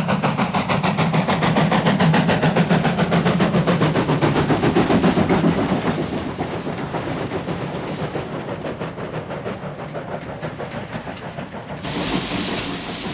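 Steam locomotive working hard, its exhaust beating in rapid, even chuffs that grow fainter from about six seconds in. Near the end the sound switches abruptly to a steady hiss.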